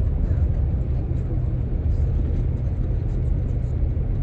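Old Chevrolet van driving on the road while towing a loaded log trailer: a steady low rumble of engine and road noise, with faint light rattling, which the driver puts down to the chain rattling.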